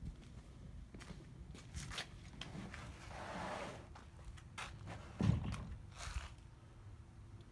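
Scattered clicks and knocks, a brief rush of noise about three seconds in, and a dull thump a little past five seconds; no engine is running.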